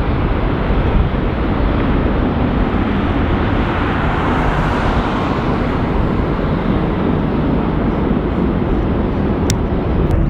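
Jet airliner's engines running loud and steady, swelling to a peak about four to five seconds in as the aircraft passes.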